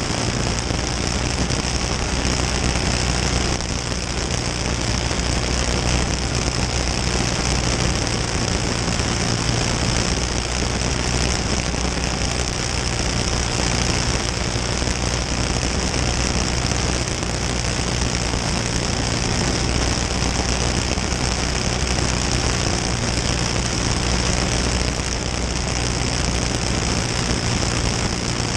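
Champ kart engine running hard at racing speed, heard from an onboard camera on the kart's cage. It holds a fairly steady note with only slight dips.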